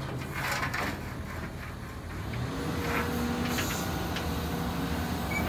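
Caterpillar 326 long-reach excavator's diesel engine running while the boom and bucket are moved hydraulically. It gets louder about two and a half seconds in, with a steady hum joining.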